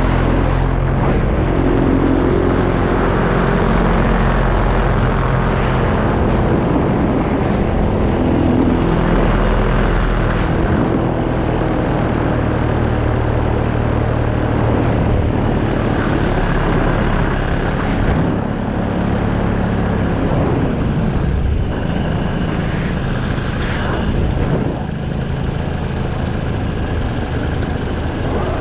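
Paramotor engine and propeller running steadily in flight, a continuous motor drone. It drops a little in level twice in the second half.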